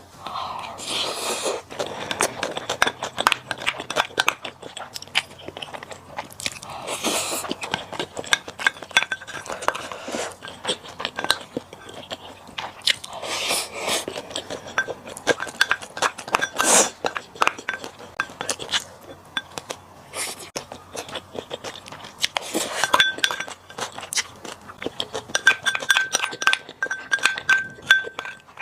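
A person eating close to the microphone: chewing, crunching and biting in a dense, irregular run of wet clicks, with a few louder bursts.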